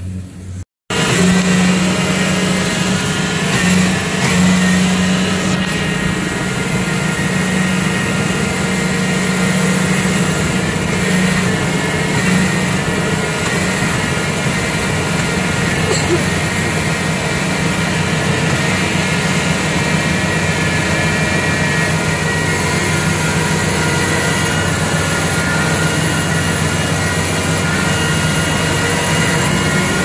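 Kubota DC-70 Plus combine harvester running steadily under load while harvesting rice, its engine and threshing machinery making a constant, loud drone. The sound starts abruptly after a brief gap about a second in.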